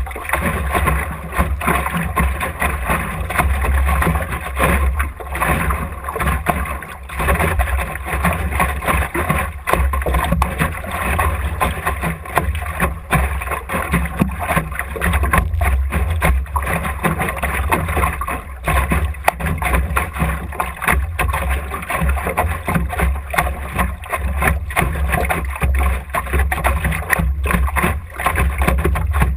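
Water rushing and splashing against the hull of an Optimist dinghy under sail, over a steady low rumble of wind buffeting the hull-mounted GoPro's microphone.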